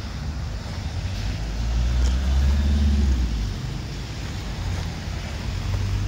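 Road traffic: cars and vans driving past, a steady low rumble that swells as one vehicle passes about two seconds in.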